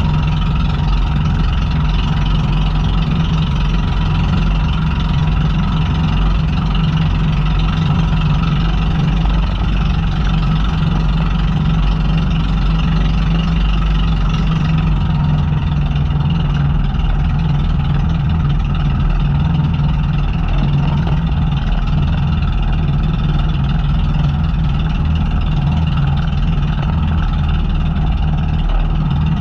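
Outrigger boat's engine running steadily under way, holding an even speed with no change in pitch.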